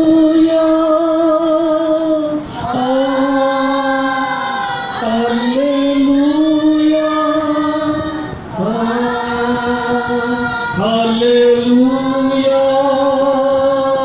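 Christian worship singing through a microphone: a voice holds long, wavering notes in phrases of about two seconds, with short breaks between them.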